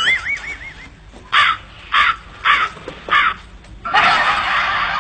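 A crow cawing four times, about half a second apart, after a brief wobbling tone at the start. A steady hiss-like noise comes in near the end.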